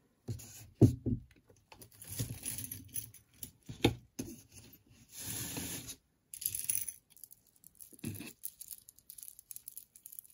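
Jewelry being handled and sorted by hand: irregular rustling and crinkling with scattered clicks and knocks, the sharpest knock about a second in.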